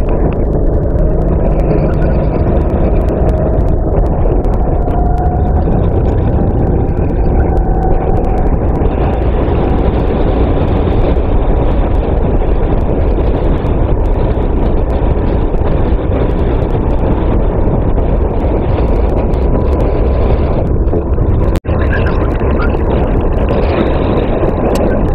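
Racing kart engine running hard on track, recorded onboard the kart, its pitch rising and falling a little with the throttle. The sound cuts out for an instant about three-quarters of the way through.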